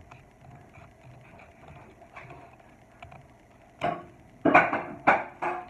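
Paper rustling and crinkling close by as a cut-out paper shape is handled and smoothed out, quiet at first, then four short loud rustles in the last two seconds.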